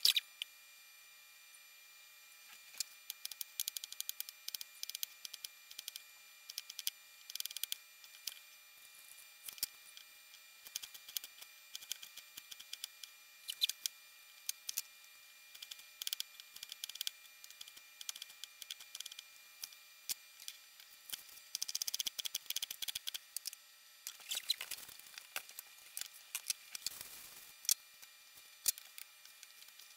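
Chef's knife chopping peppers on a wooden cutting board: irregular quick, light knocks of the blade on the board, with a denser run of rapid chopping a little past two-thirds through.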